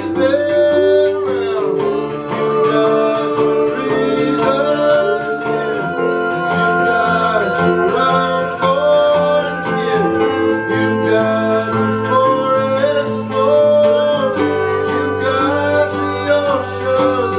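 A live song in full swing: electric and acoustic guitars strumming, with long held notes that are sung.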